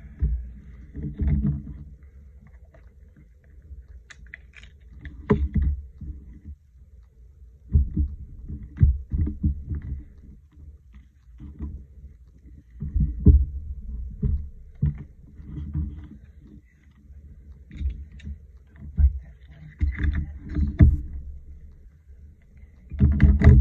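Irregular low bumps and rustling as hands shift paper collage pieces about on a desk, with a few sharper taps among them.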